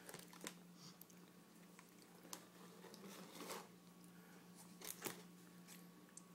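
Near silence over a low steady hum, broken by a few faint clicks and taps: a toddler's fingers and a plastic food container on a plastic high-chair tray.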